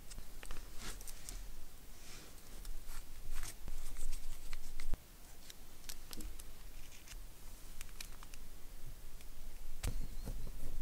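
Hands working small parts of a miniature RC portal axle, greasing the differential and fitting the pieces back together: scattered light clicks, taps and scrapes of small plastic and metal parts.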